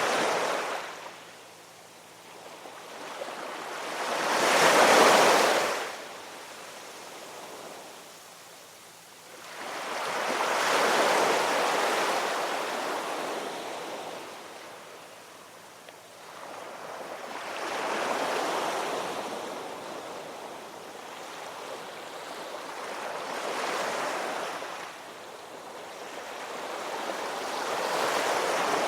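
Ocean waves breaking and washing in, one surge about every six seconds, the loudest about five seconds in.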